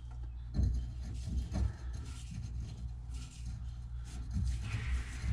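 Threaded metal pipe nipple being screwed by hand into the drain fitting in the wall: a few light knocks and scraping of the threads, over a steady low hum.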